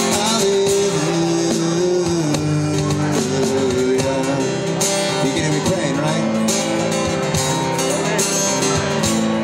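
A live band playing, with strummed acoustic guitar to the fore.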